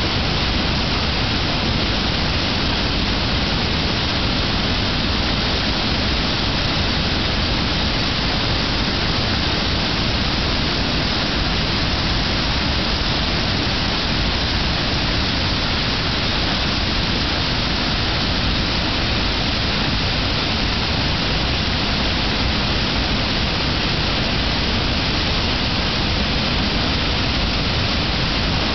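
Steady roar of the wide Ventas rumba waterfall on the Venta river, water pouring over its long, low ledge in spring flow.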